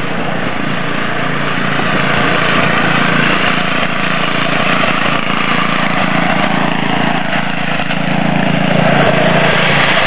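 Small gasoline engine of a walk-behind snowblower running steadily, a little louder near the end.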